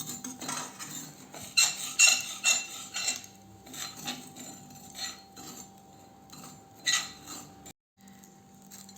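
A spoon scraping and clinking irregularly against a heavy-bottomed pan while crushed borax is stirred and roasted over low heat until it puffs up. The sound cuts out for a moment near the end.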